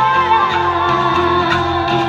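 Loud dance music: a held, bending melody over a pulsing bass beat.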